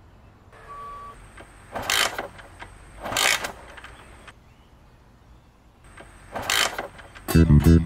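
Motorcycle kick-starter kicked three times, the engine turning over without starting. A guitar music cue comes in near the end.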